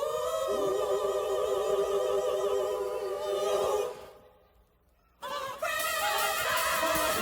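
Gospel choir singing sustained chords with vibrato. The sound drops out abruptly about four seconds in, leaving about a second of near silence, then the choir singing comes back.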